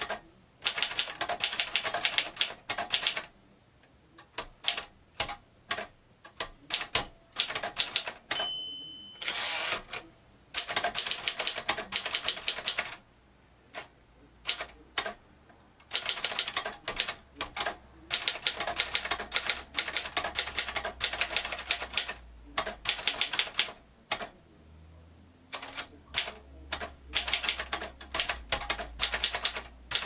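1949 Moskva Model 2 manual typewriter being typed on: fast runs of key and typebar clacks broken by short pauses. About eight and a half seconds in the margin bell rings once, followed by a short rasping sweep as the carriage is returned.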